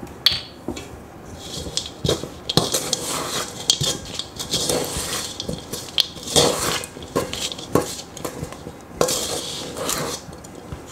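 Dry, crumbly cookie dough being mixed by hand in a stainless steel mixing bowl: irregular knocks, clinks and scrapes against the metal bowl.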